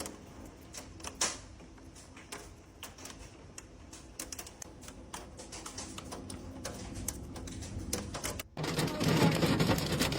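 Hailstones striking hard surfaces in quick, irregular clicks and taps. Near the end the sound cuts abruptly to a louder, steady noise with a low hum.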